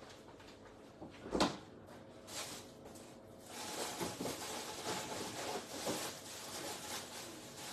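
Kitchen sounds: a single knock about a second and a half in, then a steady soft hiss with faint crackling from about three and a half seconds on.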